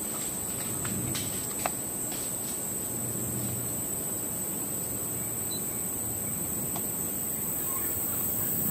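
Steady, high-pitched chorus of insects, with a couple of sharp clicks about a second and a half in.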